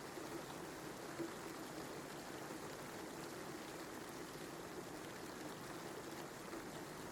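Steady rain falling, an even patter with a few faint drops standing out.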